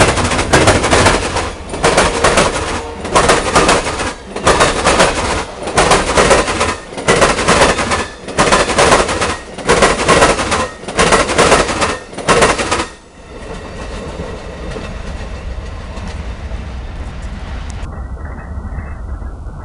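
Amtrak passenger train's wheels pounding across a double diamond rail crossing: clusters of loud bangs in a steady rhythm, a little over a second apart, as each car's wheel sets cross the diamond. The bangs stop suddenly about 13 seconds in as the last car clears, leaving a low steady rumble.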